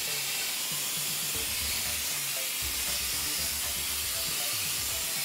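Pneumatic hopper gun spraying cement render, giving a steady hiss of compressed air driving the wet mortar out of the nozzle. The compressor feeding it is set to about 10 bar.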